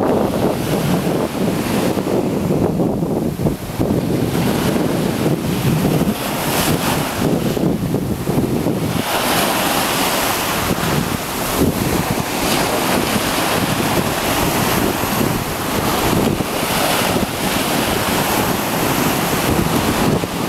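Wind buffeting the microphone over surf washing onto the beach, a steady rushing noise that turns brighter and hissier about nine seconds in.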